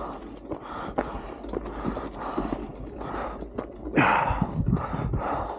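Hard, rapid breathing, about two puffs a second, from people straining to push a stalled motorcycle uphill.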